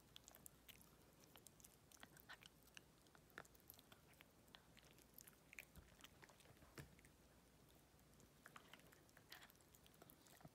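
Toy poodle puppy gnawing a hard dental scaling chew: faint, irregular crunchy clicks of its teeth on the chew, working it on alternate sides of the mouth.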